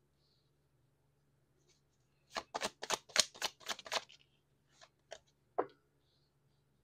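A tarot deck being shuffled by hand: after a quiet start, a quick run of card slaps and flicks for about two seconds, then a few single clicks as cards are handled.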